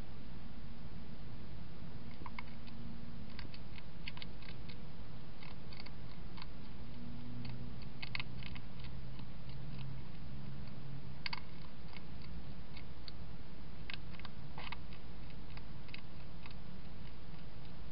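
Wild European hedgehog chewing food from a dish: irregular small crunches and clicks, heard over a steady hiss.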